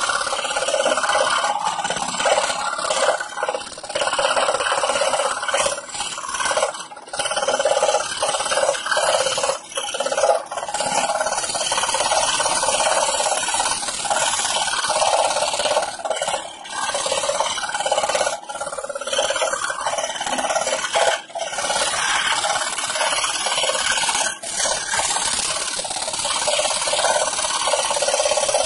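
Scroll saw running, its fine reciprocating blade cutting thin plywood in fretwork with a steady rasping buzz. The sawing sound dips briefly now and then.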